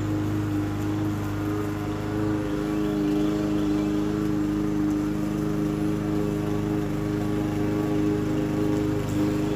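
Lawn mower engine running steadily while mowing. Its deep low hum changes slightly about two and a half seconds in.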